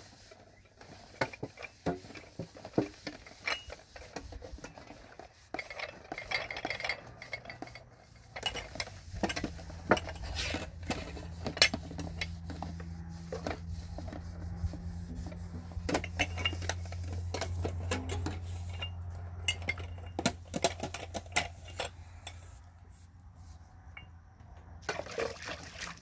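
Metal dishes and trays clinking, knocking and scraping as they are hand-scrubbed and set down in a plastic washing basin, in irregular clinks throughout. A low steady hum runs under it from about nine seconds in until shortly after twenty seconds.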